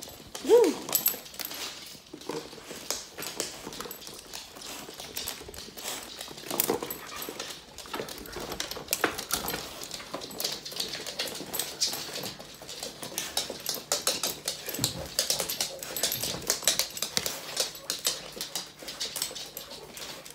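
A Labrador's short whines, one about half a second in and another around seven seconds, over a steady run of quick clicks and taps as the dog moves about on a wooden floor carrying a wicker basket in its mouth.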